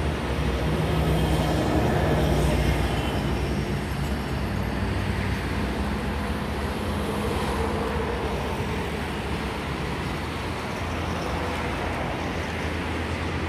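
Road traffic noise: passing vehicles over a steady low engine hum, swelling briefly louder about two seconds in.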